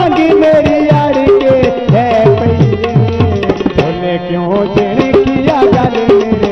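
Saraiki folk music (mahiya): tabla played in a steady rhythm, its bass strokes gliding down in pitch, under a wavering melody line.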